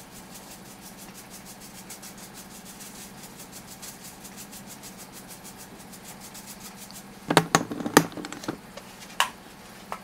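A duster brush raked across the pleated filter of a Hitachi PV-BEH900 cordless vacuum, the bristles flicking over the pleats in a rapid, even ticking. About seven seconds in come a few louder sharp knocks, and one more just after nine seconds.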